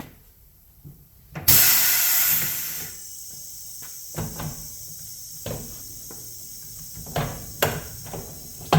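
A loud burst of compressed-air hiss from the pneumatic tire changer starts about a second and a half in and lasts over a second. Then a shop air compressor starts and runs steadily, with a few scattered knocks of metal being handled.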